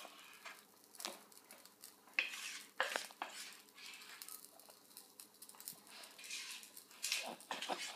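A utensil scraping and knocking inside a mixing bowl as thick pancake batter is scraped out onto a griddle: soft, scattered scrapes and a few sharper knocks.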